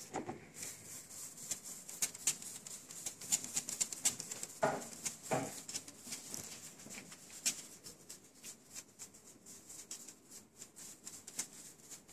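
A hand rubs and shakes flakes of imitation gold leaf through the mesh of a small handled kitchen sieve, making a rapid, irregular scratchy crackle of many tiny clicks.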